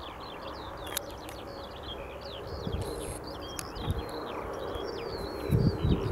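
Many small birds chirping in quick, overlapping calls, over the faint steady hum of a distant John Deere 9660i combine harvester. Low rumbles come in near the end.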